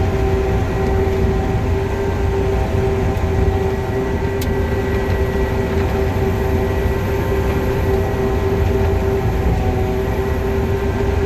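Combine harvester running steadily while harvesting corn: a low engine rumble with a steady mid-pitched whine over it.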